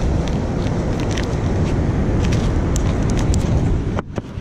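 Wind buffeting the microphone in a steady low rumble, with light crinkling and clicking as a small plastic zip bag of fishing beads is handled and opened. The rumble drops out briefly near the end.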